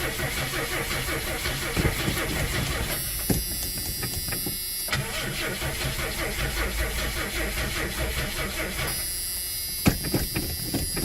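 1982 Ford Granada's straight-six being cranked over by its starter motor in two tries of about three to four seconds each, with a short pause between them. The engine does not catch.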